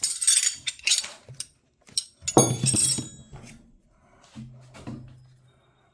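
Loose steel wrenches clinking and rattling against each other as they are handled, in a burst during the first second and again about two and a half seconds in, with a short low hum near the end.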